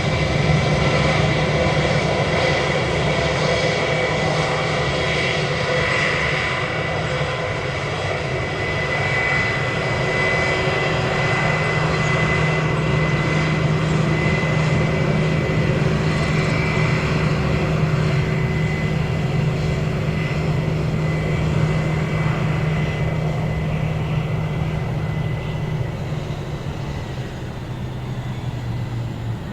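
Airplane engines running loud and steady, a deep hum under a thin high whine, easing off slightly near the end.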